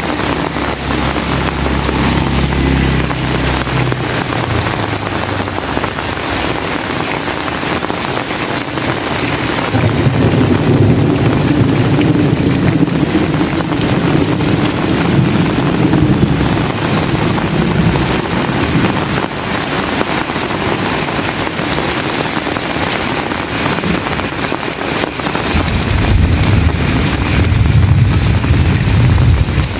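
Heavy rain falling in a steady, loud hiss. Long low rumbles rise under it three times: at the start, for about twelve seconds from a third of the way in, and again near the end.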